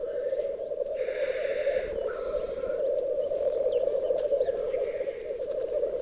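A chorus of black grouse cocks rookooing at a lek, a continuous low bubbling cooing. Two harsh hissing calls come about one and two seconds in.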